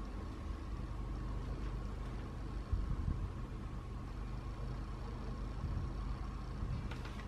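Steady low background rumble with a faint steady hum above it.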